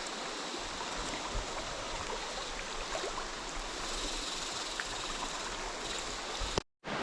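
Steady rush of flowing river water, cut off suddenly for a split second near the end.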